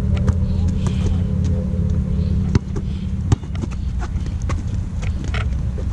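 Basketball being dribbled on an outdoor court: sharp, separate bounces, the loudest about two and a half seconds in, over a steady low rumble.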